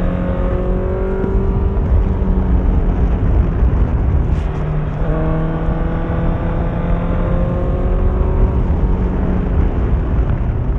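Honda CBR650F inline-four through an Akrapovic exhaust, riding under power. Its note climbs slowly, shifts to a new pitch about halfway through, climbs again and eases off near the end, over a heavy low rumble.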